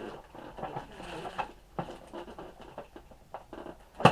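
Handling of the toy's packaging: scattered light rustles and small clicks, with one sharp snap about four seconds in.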